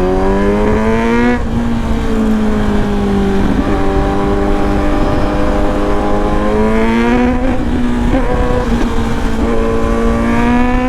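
Kawasaki Z900 inline-four through an aftermarket Leo Vince exhaust, accelerating: the engine note climbs, drops sharply at an upshift about a second in and again about seven and a half seconds in, then climbs again. Wind rumble on the microphone runs underneath.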